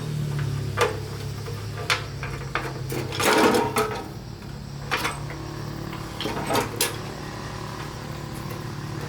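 Metal clinks and clanks of hand tools and parts being handled at a workbench, several separate knocks over a steady low hum. The longest clatter comes about a third of the way in.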